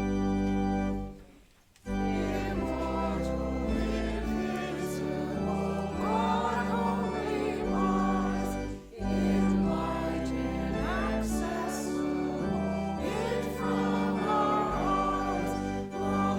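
Hymn sung by many voices with organ accompaniment. A held organ chord ends about a second in, and after a short pause the singing and organ start again, with a brief break between lines near the middle.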